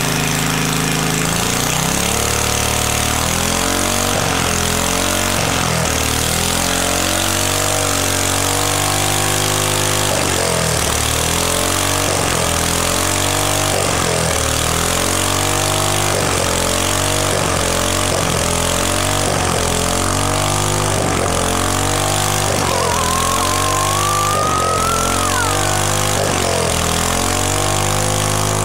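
Small open-exhaust engine running on a gasoline-nitro mixture syringed into its intake. It runs steadily at first, then about two seconds in begins revving up and dropping back over and over, roughly every second and a half. A thin rising whine joins briefly about three-quarters of the way through.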